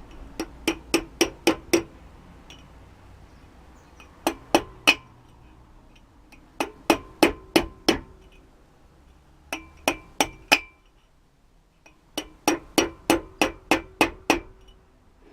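Hammer blows on an old wheel bearing used as a driver, tapping a new inner bearing into a Ford Escort's rear brake drum so it is not damaged. The taps come in quick bursts of three to eleven, five times over, each blow ringing briefly like struck metal.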